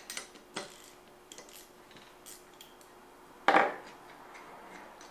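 Metal tools and brake caliper parts clinking and tapping while the caliper is being taken apart, with one louder metallic clank about three and a half seconds in.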